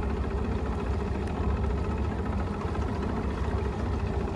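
Bass boat's outboard motor idling steadily.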